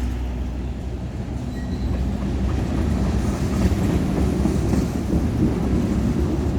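Union Pacific manifest freight train rolling past, a steady low rumble of its wheels on the rails.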